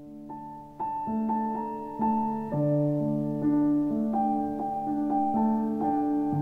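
Slow, gentle piano music: single notes struck over held chords, growing louder about a second in.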